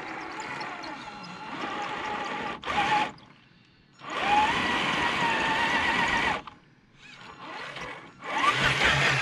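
Traxxas TRX4 1/10-scale RC crawler's brushed electric motor and geared drivetrain whining under bursts of throttle, the pitch climbing as the motor speeds up. There are two short pauses, the longer one about three seconds in.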